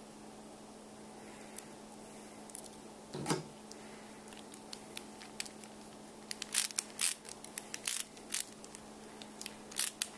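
Small steel construction-kit plates and screws clinking and clicking in the hands as a screwdriver is put to a small screw, with a quick run of sharp clicks in the second half and one dull thump about a third of the way in. A faint steady hum sits underneath.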